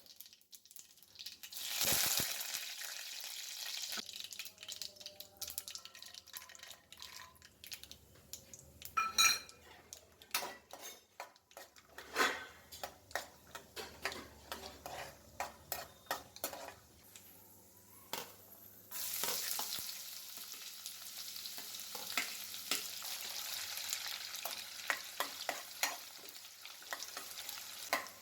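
Food frying in hot oil in a pan: a sudden sizzle about two seconds in, then a spatula stirring and scraping with sharp ticks and pops. A second, steadier sizzle with crackling starts about two-thirds of the way through.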